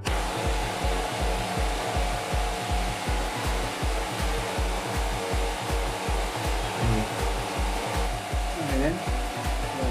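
Electric fan running steadily, a continuous rush of blown air with a faint motor hum, with music faintly underneath.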